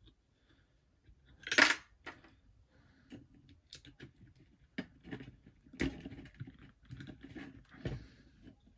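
Small metallic clicks and scrapes of an Allen wrench working the screws of an LED light panel's metal housing, with one louder scrape about a second and a half in.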